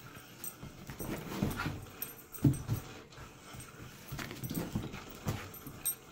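Karelian bear dog puppy's paws thudding and scrambling on a carpeted floor as it pounces after a laser dot: a run of irregular thumps, the loudest about two and a half seconds in.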